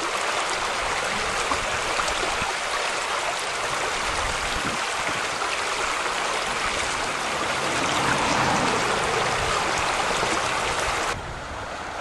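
Swollen, ice-jammed river in spring flood rushing past ice slabs and under a bridge: a steady rushing of water. Near the end it drops suddenly to a quieter flow.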